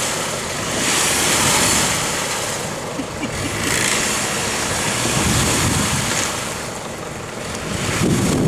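Jeep Wrangler Unlimited wading slowly through a deep muddy puddle: water churning and sloshing around its wheels in surges that swell and fade every couple of seconds, with the engine running low underneath.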